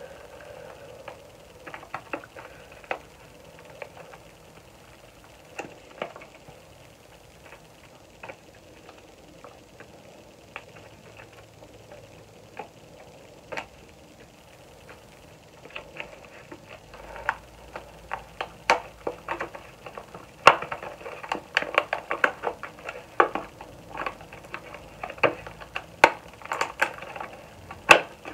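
Hands handling small cardboard boxes and plastic bottles of skincare products: scattered clicks, taps and rustles, few at first, then coming thick and fast from about halfway through.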